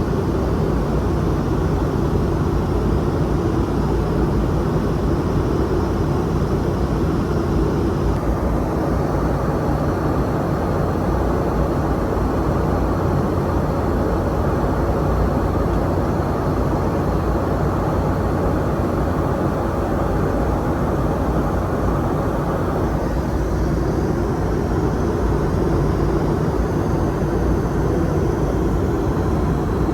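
Steady cabin noise inside a Boeing 717 in flight: an even, deep rush of airflow and engine noise that does not rise or fall.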